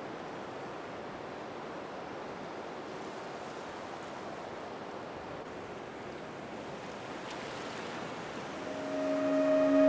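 A steady, even rushing noise, like surf. About nine seconds in, a sustained pitched tone with overtones enters and swells louder.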